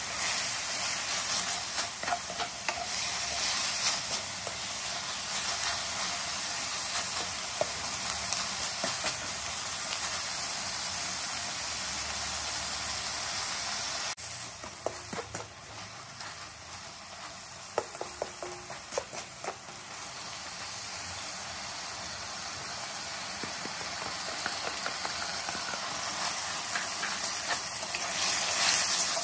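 Beef, water mimosa and dried chilies sizzling in a hot wok, stirred with a spatula that scrapes and clicks against the pan. The sizzle drops suddenly about halfway through, then grows louder again near the end.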